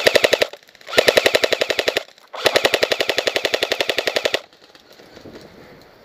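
G&G L85AFV electric airsoft rifle firing three full-auto bursts, about fifteen shots a second: a short one ending half a second in, another of about a second, and a longer one of about two seconds.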